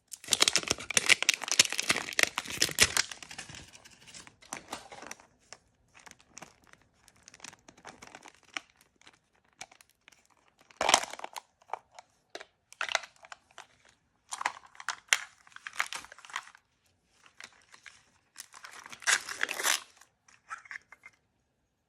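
Crinkly plastic blind-bag packaging being handled and torn open. There is a long, loud run of crackling at the start, then scattered rustles with several shorter bursts of crinkling.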